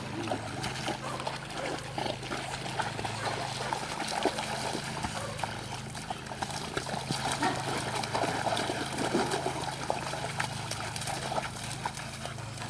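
Dogs swimming and paddling in a pond, with water splashing and sloshing as they reach the bank and wade out.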